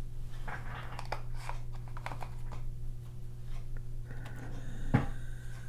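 Small paintbrush dabbing and stroking gouache onto sketchbook paper: soft, irregular taps and scratches over a steady low hum, with one sharper click about five seconds in.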